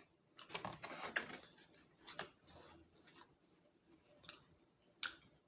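Eating noises close to the microphone: a run of small sharp clicks and crunches of chewing for about three seconds, then two more single clicks near the end.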